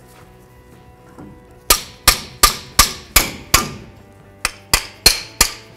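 Hammer striking the outer brake pad in the caliper to break off the pad's butterfly clip fingers. Sharp metallic blows, each ringing briefly, about three a second, begin about a second and a half in and come in two runs with a short pause between.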